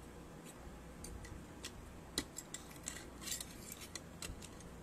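Faint clinks of a large metal soup spoon and a fork against a bowl of noodle soup, a few scattered clicks with the sharpest about two seconds in and a short cluster of them a little after three seconds.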